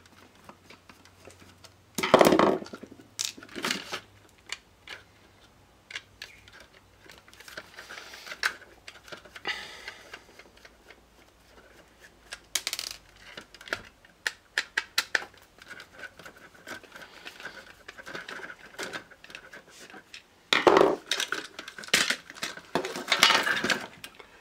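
Screwdriver working at the screws of a plastic RCD power board housing, with clicks, scrapes and knocks of plastic parts and tools on a workbench. There is a loud knock about two seconds in and a burst of clattering near the end.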